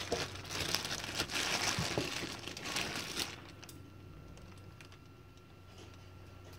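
Clear plastic bag crinkling as beef bones are handled and pulled out of it, stopping a little after three seconds in.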